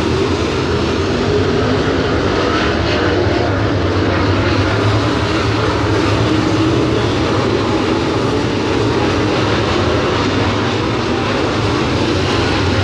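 A field of dirt late model race cars running flat out around the track, their V8 engines blending into one loud, steady drone.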